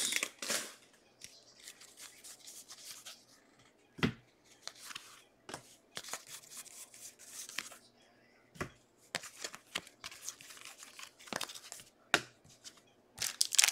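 Trading cards being slid and flicked through the hands with a foil pack wrapper rustling: a quiet, irregular string of soft clicks and short rustles, with a few sharper taps.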